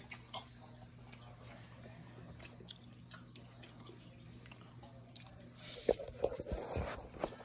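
A person chewing a mouthful of smoked sturgeon, with soft mouth clicks that grow louder and busier near the end, over a steady low hum.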